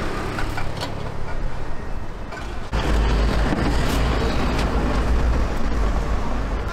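City street traffic noise: a steady low rumble that turns suddenly louder and heavier about three seconds in, with a few faint clicks on top.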